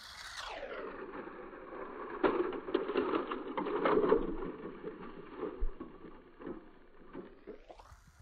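Battery-powered Lego train running on plastic track, its small electric motor whirring steadily, with several sharp clicks and plastic clatter between about two and four seconds in as the locomotive runs into a Lego tower; the sound then fades.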